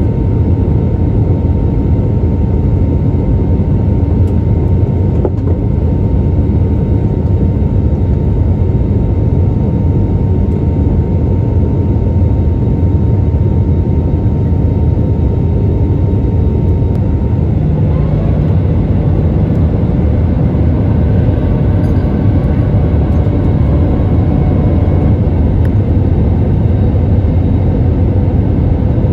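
Steady cabin roar of an Airbus A320neo in flight, heard from a window seat over the wing: its CFM LEAP-1A engines and the airflow make a deep, even rumble. A faint whine in the noise steps slightly higher about eighteen seconds in, with a low hum joining for a few seconds.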